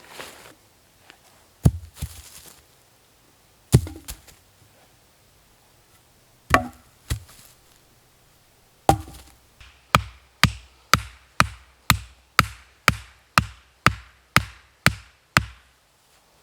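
An axe striking wood: a few separate blows, then a steady run of about a dozen blows, about two a second, from about ten seconds in.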